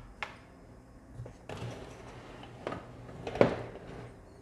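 Steel MGN12 linear rails being picked up and handled on the workbench: a few light knocks and clinks of metal, the loudest about three and a half seconds in.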